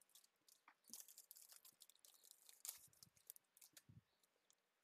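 Faint crinkling and rustling of plastic card sleeves being handled, with scattered small ticks.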